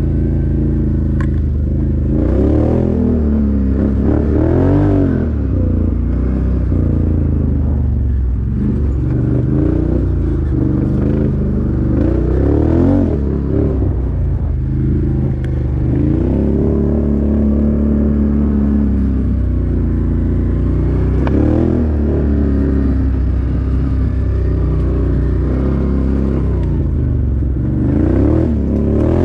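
ATV engine running under load, its pitch rising and falling again and again as the throttle is worked on and off.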